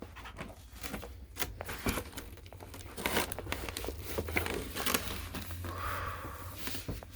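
Packaging being handled as a shipping box is unpacked: crinkling, rustling and tearing with many short crackles and scrapes, busier from about three seconds in.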